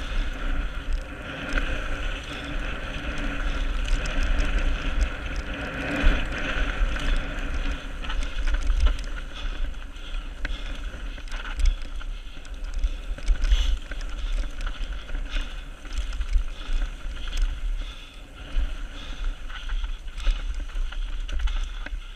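Transition Patrol full-suspension mountain bike descending a dirt trail: steady tyre rumble on the dirt with frequent knocks and rattles from the bike over bumps, and wind buffeting the camera microphone.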